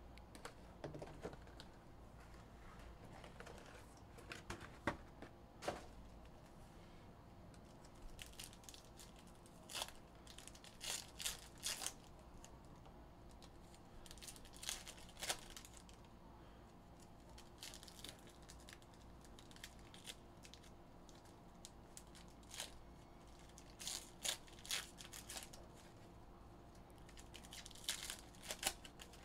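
Foil trading-card packs (2021 Upper Deck Goodwin Champions) torn open and crinkled by hand, in short bursts with pauses between.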